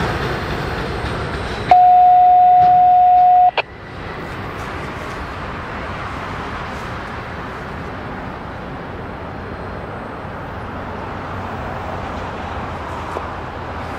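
Freight train of autorack cars rolling past, a steady rumble of wheels on rail. About two seconds in, a loud steady electronic beep cuts in over it for about two seconds and stops abruptly.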